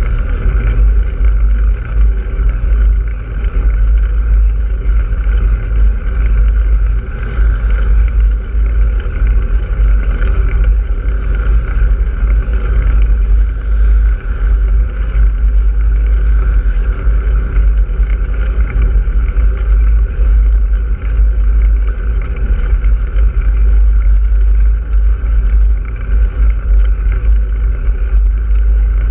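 Steady, loud wind rumble and travel noise on a moving action camera's microphone, heaviest in the deep bass.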